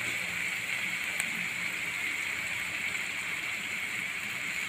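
Onion and ground tomato sizzling steadily in hot oil in a pan, a soft even hiss.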